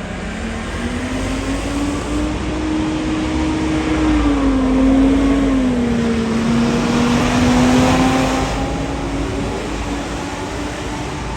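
Volvo B9TL double-decker bus's 9.4-litre six-cylinder diesel pulling hard, with the whining 'hoover' turbo sound over the engine and road noise. The whine climbs at first, dips about halfway through, then holds steady.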